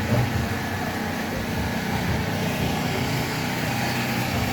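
Outdoor street noise with a steady low hum like an engine running.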